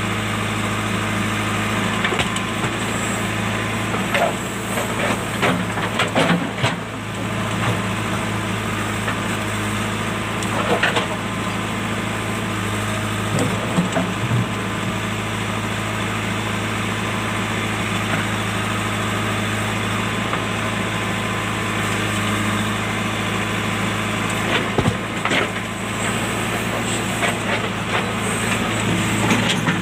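Diesel engine of a JCB backhoe loader running steadily, with scattered knocks and scrapes from the bucket working among rocks, several coming in quick clusters.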